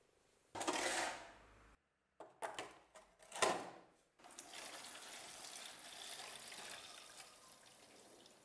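A few sharp knocks and rattles, then from about four seconds in a steady splashing pour of rust remover liquid into a cut-down plastic bottle that holds the rusty cleaver blade.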